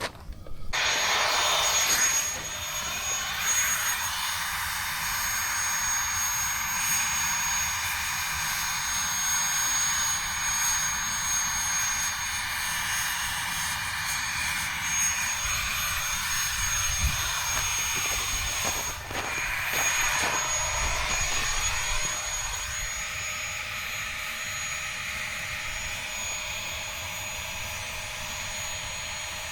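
A steady, jet-like rushing hiss with a thin, high-pitched whine, switched on abruptly about a second in. It comes from a tool aimed at a campfire that melting ice has nearly put out, to bring it back up. The rush dips briefly about two-thirds of the way through, then carries on slightly quieter.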